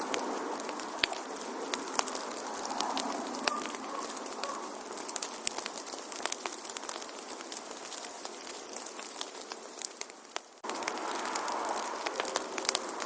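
Wood fire crackling in a fireplace: a steady hiss of burning with frequent sharp pops and snaps. The hiss fades a little, then jumps back up abruptly about ten and a half seconds in.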